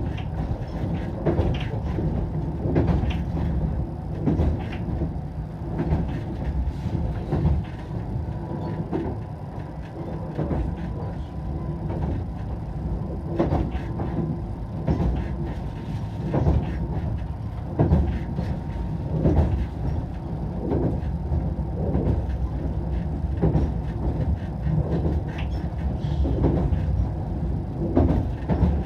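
Ki-bo light rail car running, heard on board: a steady low rumble with a short knock about every second or so, the abnormal noise the car is making.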